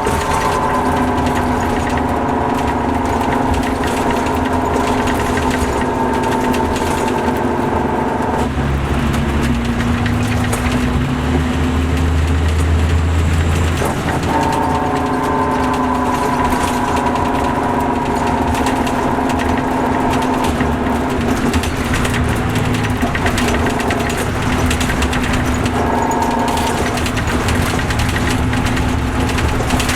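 MCI D4500CL coach's Caterpillar C13 diesel engine running, a low rumble under a steady mechanical whine. The whine drops out about eight seconds in, lower tones step up in pitch for a few seconds, and the whine returns about six seconds later.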